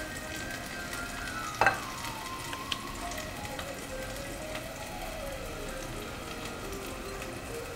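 Onions sizzling and crackling as they fry in hot oil, under faint background music. A sharp knock about one and a half seconds in is the loudest sound, followed by a smaller click a second later.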